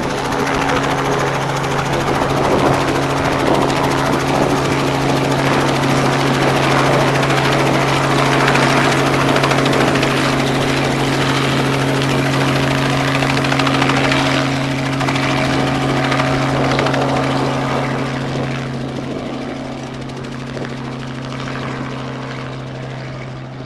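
Small helicopter running at flight power, lifting off and flying away, with a steady hum from its rotors and engine. The sound stays loud through the first half, then fades steadily as the helicopter departs.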